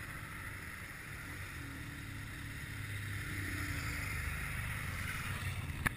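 Steady wind and road noise on a bicycle-mounted action camera during a climb, with a low engine rumble from a race support vehicle close by that swells a little in the second half. A sharp click near the end.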